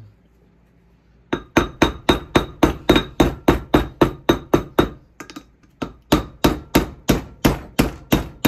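Hammer striking a steel bearing-race driver, driving a wheel bearing race into a VW Beetle disc brake rotor hub: rapid ringing metal taps, about five a second, starting about a second in, with a short lull midway. The race is being knocked home to seat it evenly.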